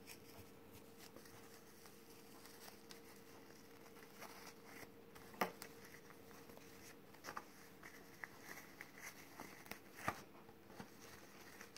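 Faint handling sounds of ribbon being threaded through a small ring and pulled through a loop: soft rustles and light taps, the sharpest about five and a half seconds in and again near the end, over a steady low hum.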